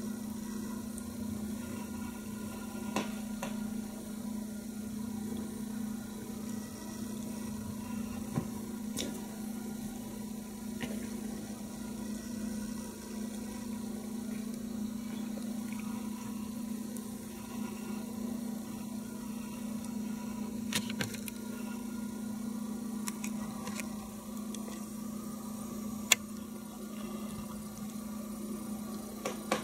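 Steady low electrical hum, with a few sharp clicks scattered through it.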